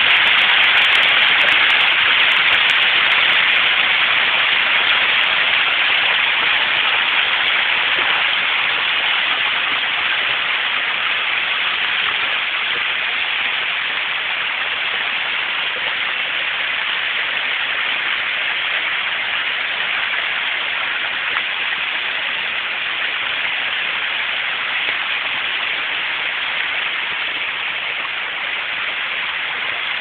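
Small waterfall cascading over layered rock ledges into a shallow pool: a steady splashing rush of water that grows slightly softer over time.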